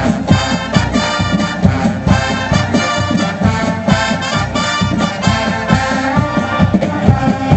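Marching band playing: brass holding chords over a steady beat of drums.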